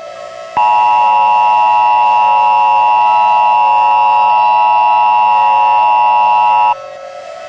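Emergency Alert System two-tone attention signal: a loud, steady electronic dual tone that starts about half a second in and cuts off suddenly about a second before the end. A quieter low droning tone sits beneath it and is left on its own when the signal stops.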